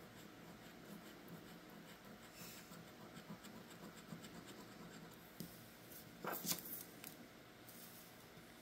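Coin scratching the coating off a paper scratch-off lottery ticket: a faint, steady rasp with small ticks, and a brief louder scrape about six seconds in.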